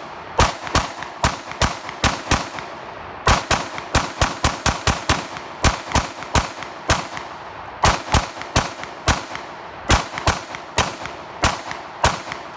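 AR-15 rifle being mag-dumped from a 100-round drum magazine: a long string of about thirty semi-automatic shots, two to three a second, each with a short echo. There is a brief pause about two and a half seconds in, followed by a quicker run of shots.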